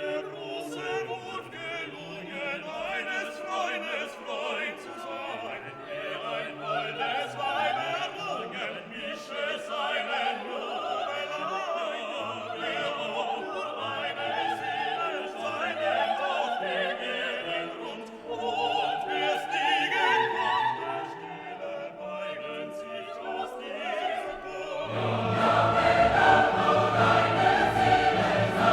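Background classical music: operatic singing with choir and orchestra, building to a fuller, louder passage near the end.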